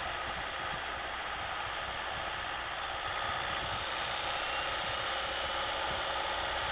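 Steady road and tyre noise heard inside the cabin of a Citroën Nemo van cruising at about 80 km/h in fifth gear on a wet road, over the low hum of its 1.3 Multijet four-cylinder turbodiesel.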